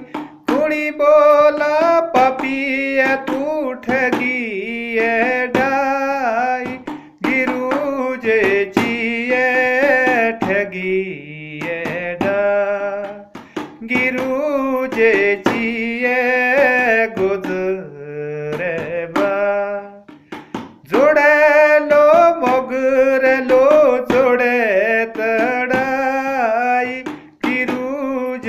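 A man singing solo in long, wavering phrases, with short breaths between them.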